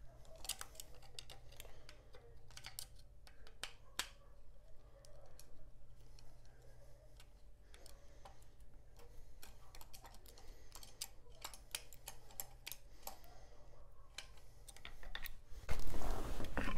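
Long screwdriver turning the stock bolt deep inside a Smith & Wesson 916A's wooden buttstock: a run of small, irregular clicks as the blade works in the bolt head. Near the end, louder handling noise as the loosened stock is pulled from the receiver.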